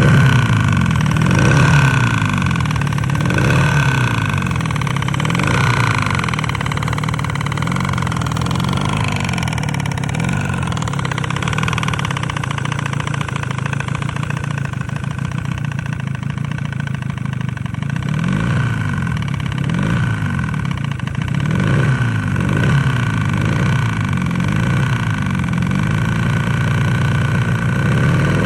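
Yamaha 30H two-stroke outboard motor running with a knocking piston, revved briefly several times in the first seconds and again in the second half. The knock comes from scored cylinders and a stuck piston ring after the motor overheated.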